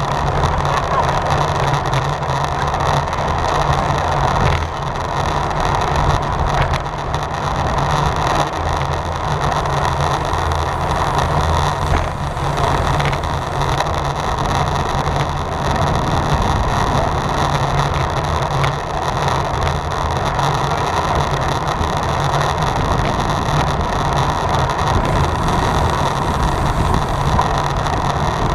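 Steady rush of wind and road noise from a road bike ridden at race speed, heard as a constant low rumble with a broad hiss over it.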